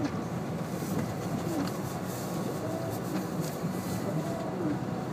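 All-wheel-drive car driving through deep snow, heard from inside the cabin: a steady low rumble of engine and tyres.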